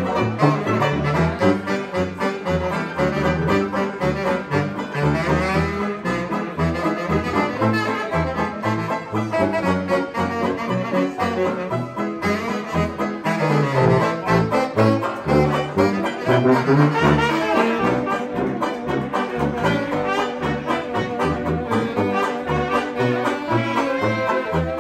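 Small 1920s-style hot jazz band playing an instrumental passage: saxophones over a sousaphone bass line keeping a steady beat. A trumpet joins near the end.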